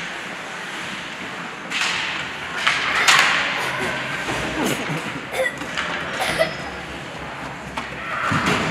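Ice hockey play in an indoor rink: sharp clacks and thuds of sticks, puck and boards over a steady rink noise, with a few brief shouts.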